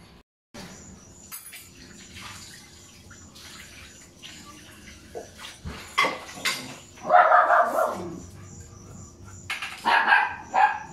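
Puppies barking and whining as they play, with a loud cry that slides down in pitch about seven seconds in and another burst of barks near the end.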